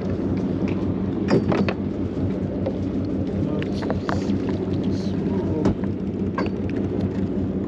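A boat engine running steadily with a low hum, with a few short clicks and knocks from handling the line and fish.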